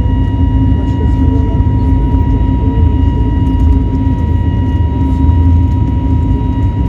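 Jet airliner engine noise inside the cabin: a loud, steady low rumble with constant whining tones over it.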